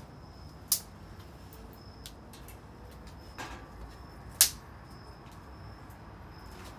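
Two sharp clicks, about three and a half seconds apart, against a quiet background with a faint high-pitched tone that comes and goes.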